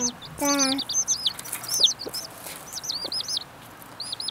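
Newly hatched chicks peeping in rapid, high, arching chirps, several at once. These are the calls by which a broody hen comes to recognise chicks as her own brood.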